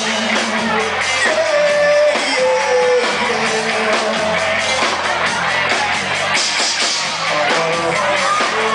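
Live rock band playing loud, with electric guitar, drums and a male singer.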